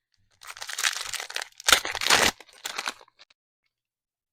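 Trading card pack wrapper crinkling as it is handled, loudest in a burst about halfway through, then a few shorter rustles.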